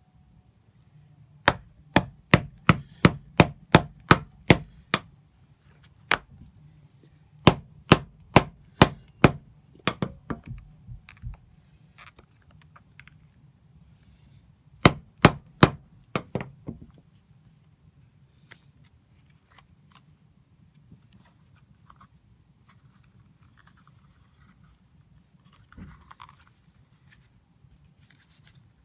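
Sharp taps or knocks in quick, even runs of about three a second: about a dozen near the start, another dozen or so that fade out in the middle, and a shorter run of about six.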